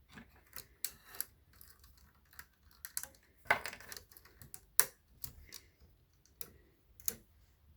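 Plastic Lego parts clicking and rattling as a piece of a Lego pirate ship model is rotated to let out its anchor chain: scattered small clicks, with a short clatter about three and a half seconds in and single sharper clicks near the five- and seven-second marks.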